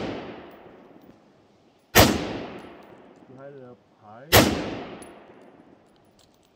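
Kel-Tec SU-16 semi-automatic 5.56 rifle fired twice, single shots about two and a half seconds apart, each sharp crack followed by a long echoing decay; the tail of an earlier shot is still fading at the start.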